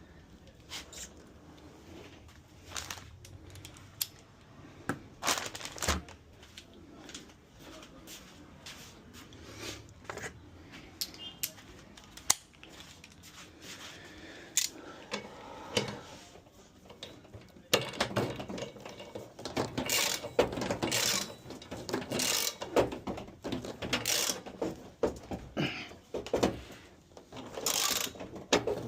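Hand tools and washing-machine parts clicking, knocking and rattling as the machine is taken apart, scattered at first and busier and louder from about two-thirds of the way in.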